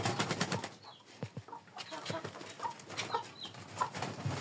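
Domestic hens clucking in short repeated notes, with a chick peeping higher now and then. A brief flurry of wing flapping comes at the start, and a shorter one comes about two seconds in.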